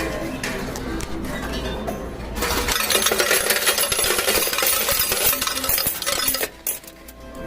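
Electronic tones, then from about two and a half seconds in a loud, dense clatter of coins dropping for about four seconds, which eases off near the end.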